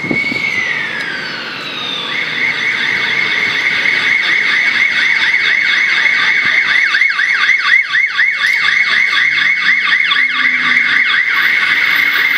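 Emergency vehicle siren: a wail sliding down at the start, then a fast repeating yelp from about two seconds in. A second siren's yelp overlaps through the middle of the stretch.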